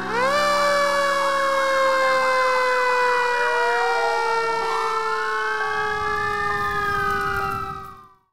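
Several emergency vehicle sirens sounding together: one with a rapid warble, one with a long slowly falling wail, and another rising and falling more slowly. They fade out quickly near the end.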